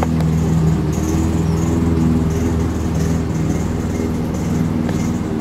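Lawnmower running with a steady drone that holds one pitch throughout.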